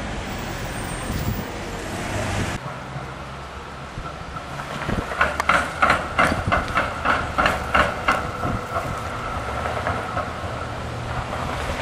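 A tram's wheels clattering across a tram–railway diamond crossing: a quick run of about ten sharp metallic clacks, about three a second, with a ringing tone under them, over a steady low rumble.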